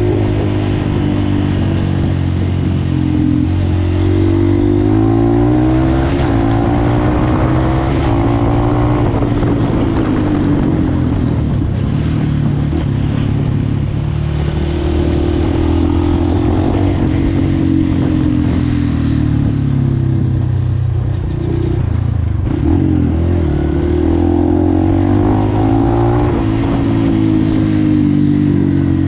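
Dirt bike engine running under way, heard from on board the bike. Its pitch rises and falls several times as the throttle is opened and closed.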